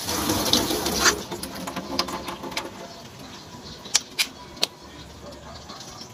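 Plastic squeeze tube of facial wash being handled, opened and squeezed into a hand. A rushing noise fills the first second, then there are a few sharp plastic clicks about two seconds in and a quick cluster of three around four seconds in.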